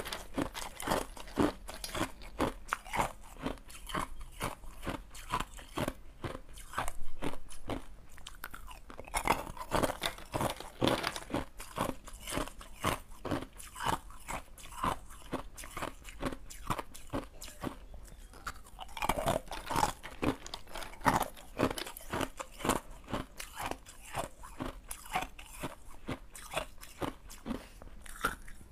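Clear ice cubes being bitten and chewed close to a clip-on microphone: a steady run of sharp crunches, about three a second, with denser spells of crunching about a third and two-thirds of the way through.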